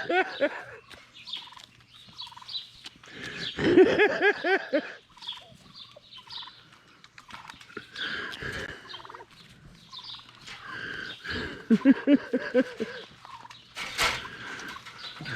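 Domestic turkeys gobbling in two loud rapid bouts, one a few seconds in and one near the end, with fainter calls between them. There is a short sharp knock just before the end.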